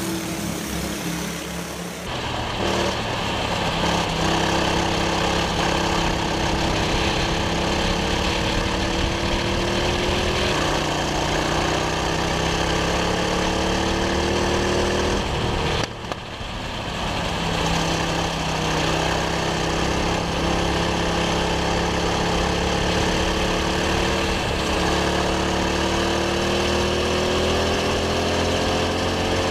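Go-kart engine heard up close from an onboard camera during a race, its pitch climbing slowly as the kart accelerates down the straights. The engine note drops sharply about sixteen seconds in, then climbs again as the kart picks up speed.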